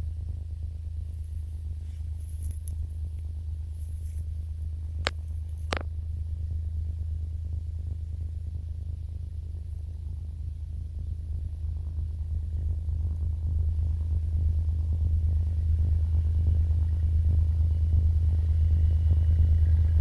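Low rumble of an M62 diesel locomotive's two-stroke V12 engine, growing steadily louder over the second half as the locomotive draws nearer. Two sharp clicks about five and six seconds in.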